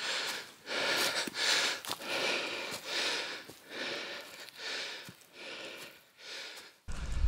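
Hard, rapid breathing of a hiker out of breath on a steep uphill climb, about one and a half breaths a second. Near the end the breathing stops and a low rumble takes over.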